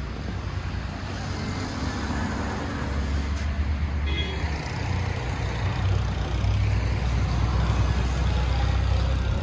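Steady low rumble of nearby road traffic and running vehicle engines, with a constant hiss over it.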